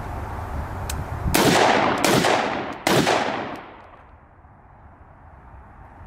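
Three shots from a Springfield Saint Victor AR-15 pistol with a 10.5-inch barrel in .223/5.56, fired about a second and a half in, at two seconds and near three seconds. Each shot is followed by a long echoing decay.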